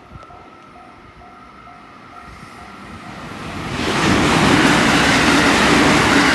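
Japanese railway level-crossing alarm ringing its electronic 'kan-kan' about twice a second. Then a train approaches and runs past the crossing at speed, loud from about four seconds in and drowning out the bell.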